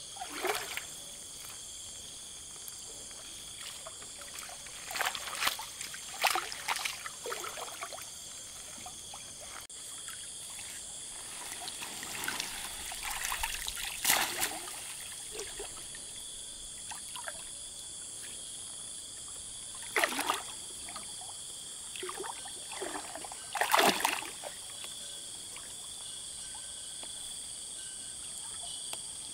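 Lake water splashing and trickling in a series of short bursts as a fishing net is worked in the water, over a steady high insect drone.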